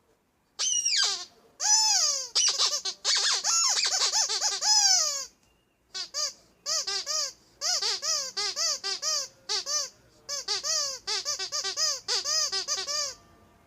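Ledraplastic rubber squeaky duck toy squeezed over and over: first a run of long squeaks that bend and slide in pitch, then after a short pause a quicker series of shorter squeaks, about three a second, each rising and falling in pitch.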